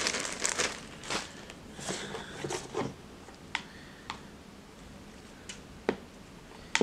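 Plastic zip-lock bag crinkling as it is handled for about the first three seconds, then a quieter stretch with a few faint sharp clicks and taps.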